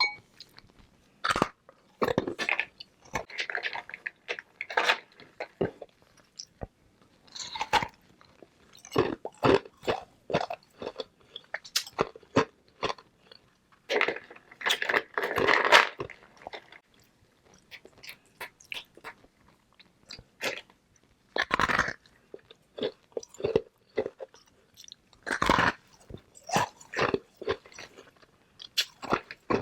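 Close-miked biting and chewing of hard frozen flavored ice balls: irregular sharp crunches in bouts, with short pauses between bites.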